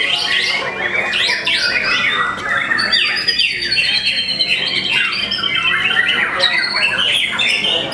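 White-rumped shama (murai batu) singing in contest: a fast, unbroken stream of varied whistles, chirps and harsh squawk-like notes.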